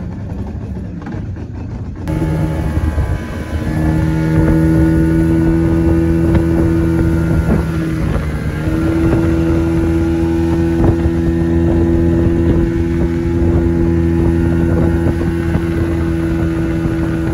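Boat's outboard motor running steadily under way, loud and even in pitch. It grows louder about two seconds in and again shortly after.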